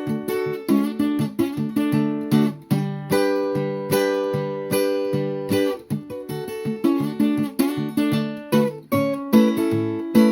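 Acoustic guitar playing an instrumental passage of a Texas country blues, plucked notes and strummed chords in a steady rhythm. About three seconds in, one chord is left to ring for a couple of seconds before the picking resumes.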